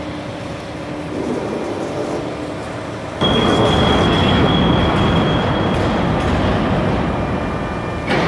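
Hydraulic CNC press brake running: a steady machine hum, then about three seconds in a sudden much louder rushing noise with a steady high whine as the machine goes into motion, the whine fading a few seconds later and the noise easing, before another sudden surge near the end.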